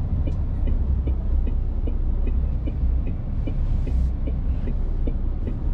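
Articulated lorry's diesel engine running at low revs, heard inside the cab, as the truck creeps forward at walking pace. A light ticking repeats about three or four times a second, and a short hiss comes about three and a half seconds in.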